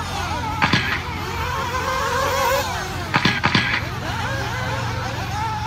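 Several nitro RC buggy engines running around the track, their high-pitched whine rising and falling as they rev and brake. Two short loud bursts cut through, one under a second in and another around the middle.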